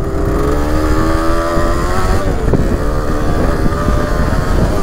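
Kawasaki KDX 125 two-stroke dirt bike engine accelerating hard: its pitch climbs, dips briefly about halfway through, then climbs again. Wind rumbles on the onboard microphone.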